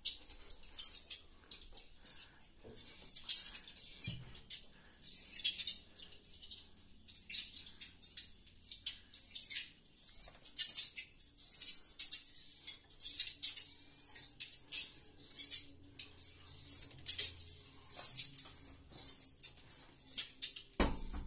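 Dense, high twittering and rapid clicking of edible-nest swiftlets, many calls overlapping without a break. A low thump comes near the end.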